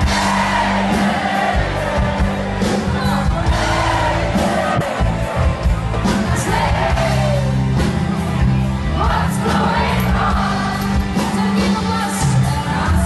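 Band music with a singer, loud and steady, with a crowd yelling and whooping along.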